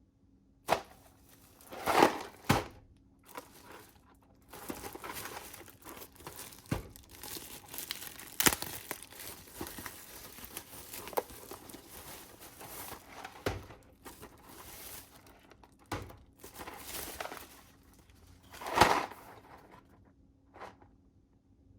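Packaging being opened and handled: tearing and crinkling, with a few sharp knocks and louder rustles, the loudest about two seconds in and near the end.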